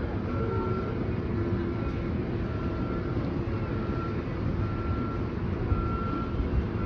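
A MARC commuter train idling at the platform, with a steady low rumble, and an electronic warning beep that sounds about once a second, each beep about half a second long.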